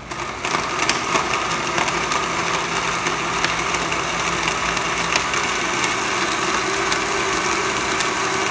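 Impex countertop blender motor running steadily, puréeing tomatoes. It starts abruptly and holds an even, high-speed whir throughout.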